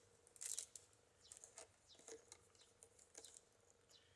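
Faint, scattered crackles and rustles of wicker rods being handled as the basket is turned and checked, the strongest about half a second in.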